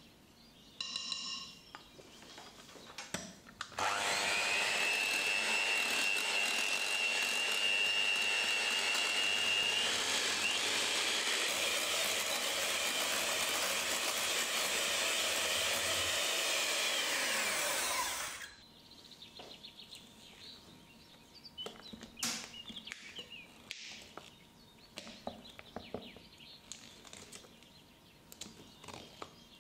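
Electric hand mixer beating thick chocolate cheesecake batter in a glass bowl, a steady motor whine that starts about four seconds in, shifts in pitch about halfway through and cuts off after about fourteen seconds. Afterwards, faint scraping of a spatula stirring the batter against the bowl.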